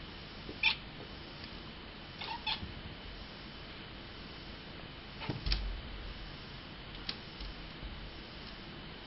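Domestic cat giving short, high-pitched, bird-like chirps, about six at irregular intervals, the chirping a cat makes while watching a fly.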